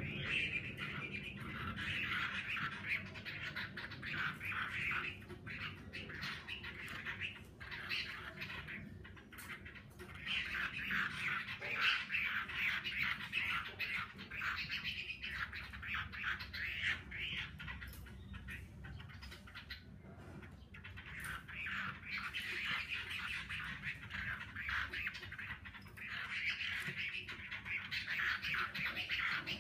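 Chinese hwamei (melodious laughingthrush) singing its full song in long, fast, varied bouts broken by short pauses.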